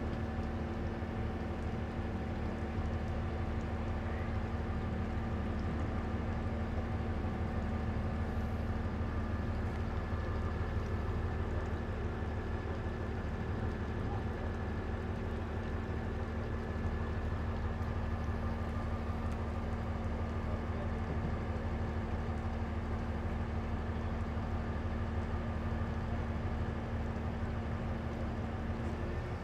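Heavy-duty tow truck's diesel engine idling steadily, a low rumble with a constant hum over it.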